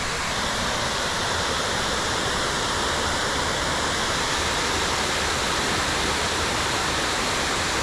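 Waterfall rushing loudly and steadily, an even wash of falling water without breaks.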